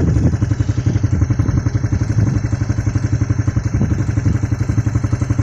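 Suzuki motorcycle engine idling steadily with a quick, even pulse.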